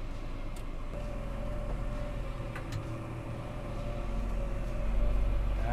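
Massey Ferguson MF6713's four-cylinder diesel engine running steadily, a low drone with a faint steady whine, growing louder about five seconds in.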